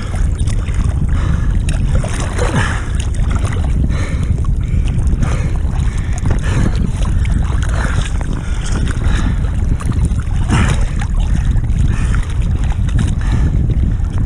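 Heavy wind rumble on the microphone with choppy surf sloshing and splashing, in irregular surges.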